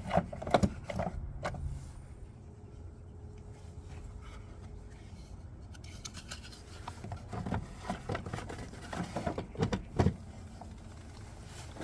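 Hand tools working on metal car parts: clusters of sharp clicks and knocks in the first two seconds and again from about seven to ten seconds in, with a quieter stretch between.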